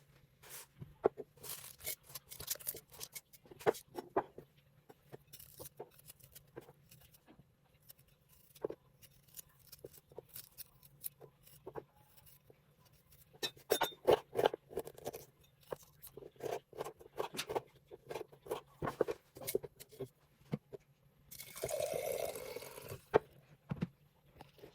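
Kitchen preparation sounds: scattered clinks and taps of glass and utensils, and a short rush of pouring liquid near the end, over a faint steady low hum.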